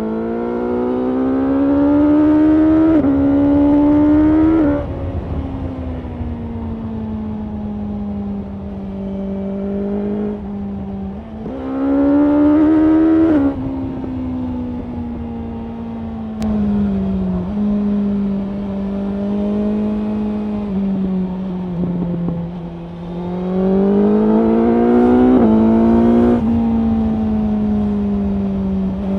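BMW S1000R's inline-four engine pulling hard three times with a rising pitch, two of the pulls broken by a quick upshift, between stretches of steady cruising at road speed over a low rush of wind.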